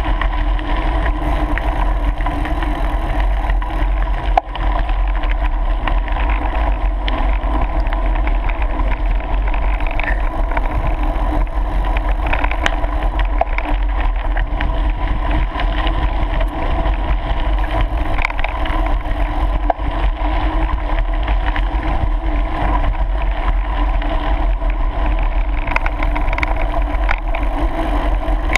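Steady rolling rumble of mountain bike tyres on a gravel path, heard from the moving bike.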